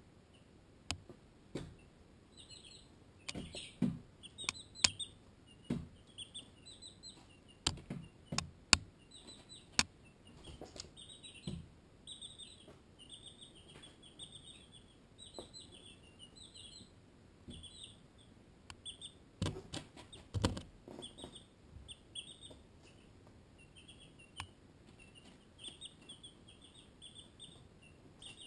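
A brood of Barred Rock and Ameraucana chicks peeping steadily, many short high peeps a second. Scattered loud, sharp taps close by, in clusters near the start and again about two-thirds of the way through.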